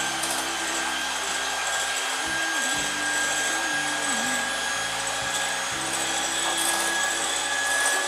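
Electric hand mixer running at a steady speed with a constant high whine, its beaters whipping egg whites into stiff peaks. Background music plays underneath.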